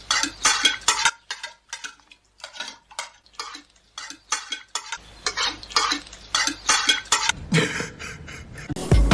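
A rapid series of short scraping and clinking strokes, several a second, thinning out for a few seconds in the middle.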